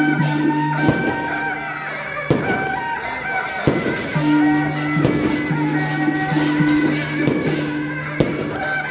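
Music with long held low notes under a higher melody, punctuated by sharp percussion strikes about every second and a half.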